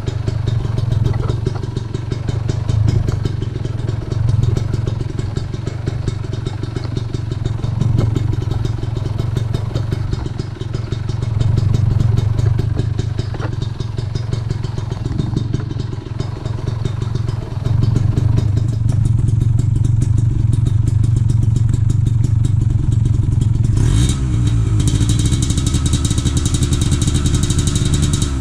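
Kawasaki Ninja 150 two-stroke engine running at idle through a gutted stock exhaust, with the throttle blipped now and then, then revved with rising pitch near the end.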